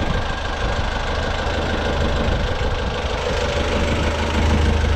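Sailboat's inboard engine running steadily at idle, with a strong low hum, heard up close.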